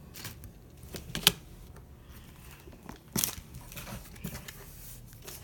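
Trading cards being handled, light rustling with a few sharp taps and clicks, the loudest about a second in and again about three seconds in.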